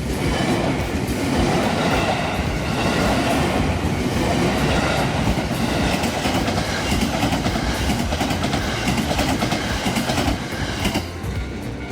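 Train running on the track at close range, a loud dense rail noise that cuts in suddenly and drops away about eleven seconds in.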